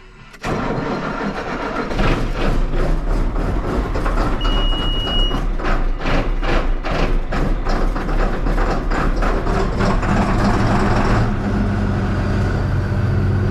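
Model 8670 tractor running with the manure spreader, a steady engine hum under heavy rattling and knocking. A short high beep comes about four and a half seconds in. The clatter stops about eleven seconds in, leaving the engine running on its own.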